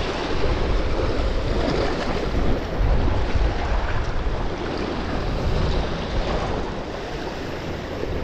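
Wind buffeting the microphone over the wash of the sea against shoreline rocks: a steady rushing noise with a heavy low rumble, easing slightly near the end.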